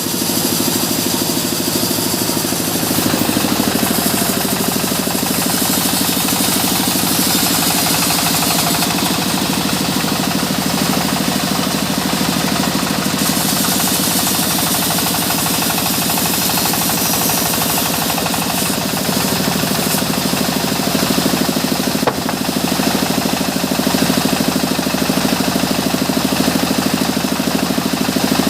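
Sawmill saw running steadily while sawing mahogany into boards: a constant, fast-pulsing engine-like drone under a loud high hiss.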